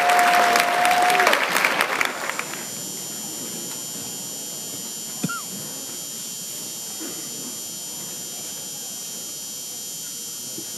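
Audience applauding, with one long held whoop from the crowd, then dying away about two seconds in. After that the gym is quiet, with faint murmur, a faint steady high whine and one short knock about five seconds in.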